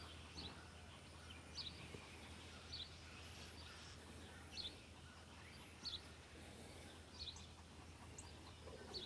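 Faint bird chirping: short, high chirps repeating about once every second or so, over a low steady hum.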